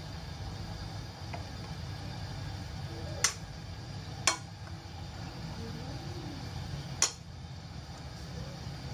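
A utensil knocks sharply against a ceramic bowl three times while a pork chop is turned in beaten egg, over a steady low hum.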